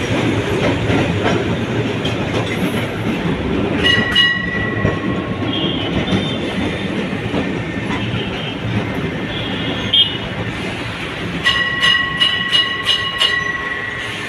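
Kolkata tram car running on its rails, heard from inside: a continuous rumble and rattle of the wheels and the old wooden car body. A steady high tone sounds briefly about four seconds in and again for a couple of seconds near the end.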